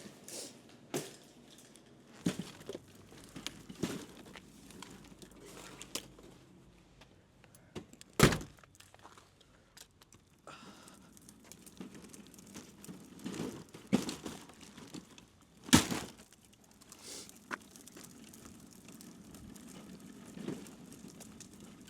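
Packaged snack bags crinkling as they are handled, with scattered clicks and knocks and two sharp thunks, about 8 and 16 seconds in, while a snack vending machine is stocked.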